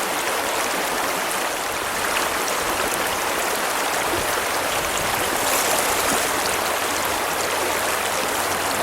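Trout stream running over its bed: a steady, even rush of flowing water.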